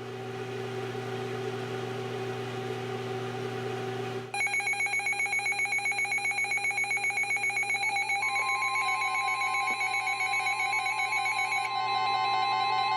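Several weather radios switch on with hiss and a steady hum. About four seconds in, their alert alarms start beeping together in rapid pulses. About eight seconds in, the steady NOAA Weather Radio 1050 Hz warning alarm tone joins them; the alert is for a flood warning.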